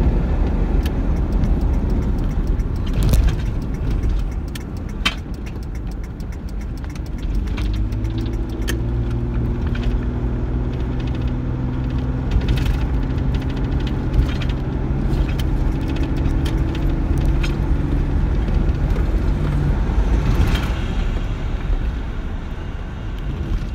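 A car driving, heard from inside the cabin: steady low road rumble and engine hum. About eight seconds in, a steady engine tone comes up and drifts slowly in pitch, with scattered light clicks and rattles over it.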